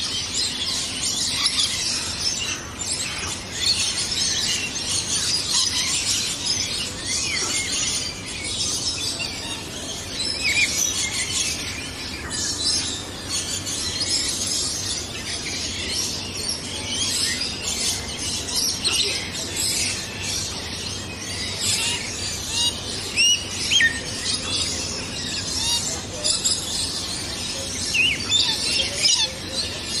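A dense, continuous chorus of birds chirping and twittering, many short high calls overlapping, with quick rising chirps standing out now and then.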